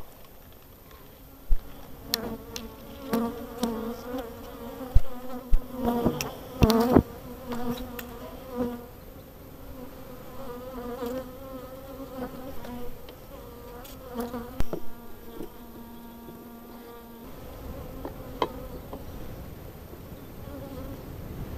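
Honeybees buzzing around an open hive, a humming drone, with scattered knocks and clicks as the wooden hive parts and a plastic feeder are handled, most of them in the first few seconds.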